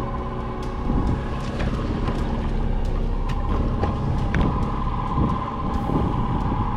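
Outboard motor running steadily at trolling speed, a constant hum with wind on the microphone and scattered light clicks from the fishing reel being cranked.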